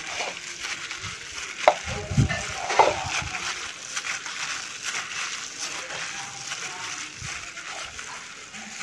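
Plastic bag worn over a hand crinkling and rustling as it crumbles and mashes hard-boiled egg yolks in a ceramic bowl, with two sharp clicks in the first three seconds.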